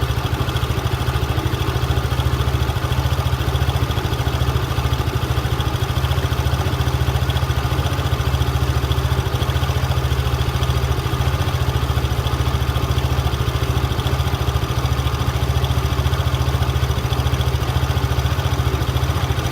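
Engine idling steadily, with an abnormal clattering noise from the drivetrain (transmission) at idle.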